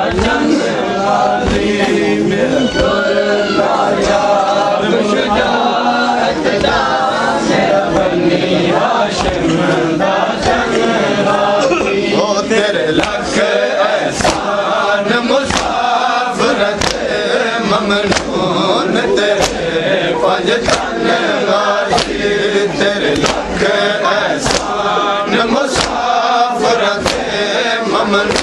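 Crowd of men chanting a mourning noha together, over sharp hand-on-chest slaps of matam that recur about once a second.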